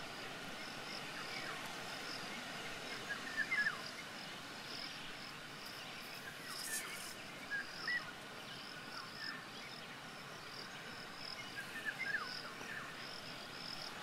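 Quiet natural ambience: a steady high chirping repeating about twice a second, typical of a cricket, with a few faint short bird calls now and then.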